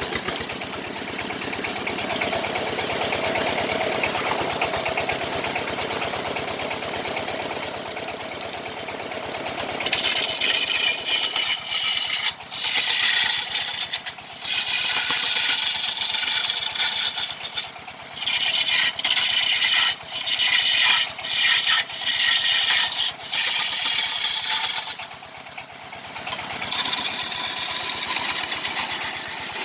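Wood lathe running with a kendang drum body spinning on it. From about ten seconds in, a chisel cuts into the turning wood in long, harsh passes with short breaks between them.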